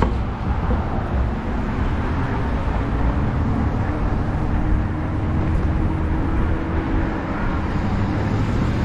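Steady low rumble of wind on the microphone and road noise while riding an e-bike in traffic, with a faint steady hum for a few seconds in the middle.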